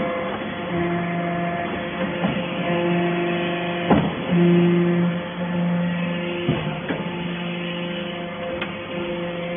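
Hydraulic metal-shaving baler running: a steady machine hum with a low pump tone that comes and goes as the load changes, and a few sharp clunks, the loudest about four seconds in.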